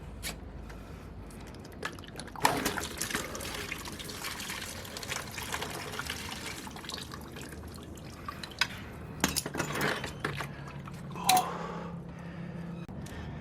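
Coolant pouring and dripping out of the radiator where the lower hose has been worked loose, with scattered sharp clicks and knocks of handling, the loudest about two and a half seconds in and near the end.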